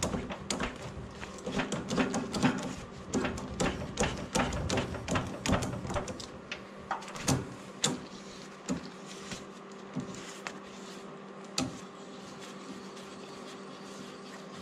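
Metallic clicks and clinks of a hand tap wrench as a 5/8-inch, 18-threads-per-inch tap is turned in the drilled end of a Wisconsin VH4D crankshaft. The clicks come quickly at first, thin out, and stop about twelve seconds in, over a steady hum.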